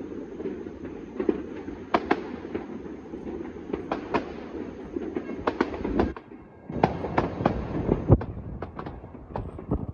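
Distant fireworks and firecrackers going off all over a city at once: a continuous crackling rumble with many sharp bangs on top, the loudest just after eight seconds in, the background briefly thinning out about six seconds in.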